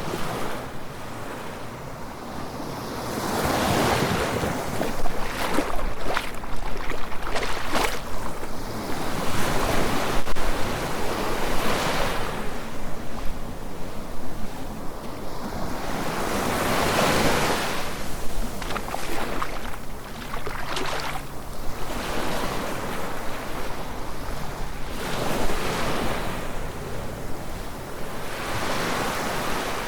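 Surf on a beach: small waves breaking and washing up the shore, the rush swelling and easing every few seconds, with some wind.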